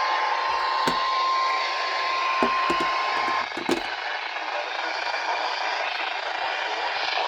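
Weather radio warning alarm tone, a single steady high beep, over heavy radio static; the tone cuts off about three and a half seconds in, leaving the hiss of the static, with a few knocks along the way.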